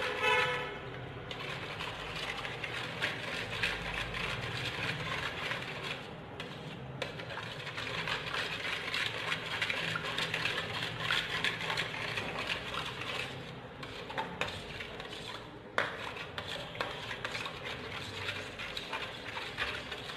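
A spoon stirring milk in a steel bowl, scraping and lightly ticking against the metal, mixing in the palm sugar candy and almond gum. The stirring pauses briefly a couple of times, and there is one sharp click about three-quarters of the way through. A short pitched toot sounds at the very start.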